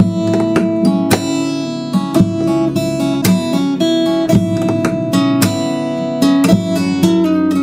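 Background music: an acoustic guitar cover, notes plucked and strummed in a steady stream, beginning with a sudden attack at the very start.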